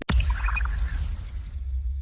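Synthetic sci-fi interface sound effect: a steady low electronic hum that drops out for an instant near the start. A scatter of high crackling, glassy tinkles follows for about a second and a half and fades.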